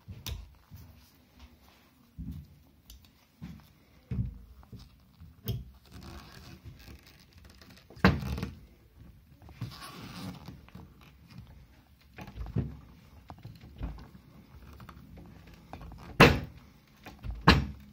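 End-cutting pliers gripping finish nails and levering them back through wood trim: an irregular run of clicks and knocks as the steel jaws bite and rock against the wood, with short scraping stretches in between. The loudest knocks come about eight seconds in and twice near the end.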